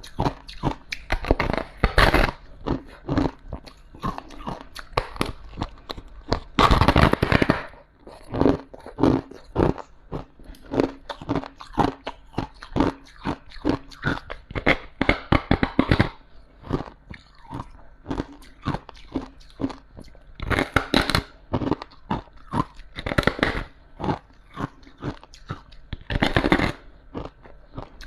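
Close-up biting and chewing of humidifier frost: a dense run of crisp crunches, with several louder bites spread through.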